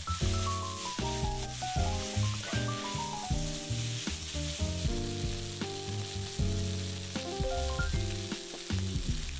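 Seaweed stems, onion and carrot sizzling as they are stir-fried in oil, with scattered soft scrapes of a wooden spatula tossing them. Gentle background music with changing chords plays over it and is the most prominent sound.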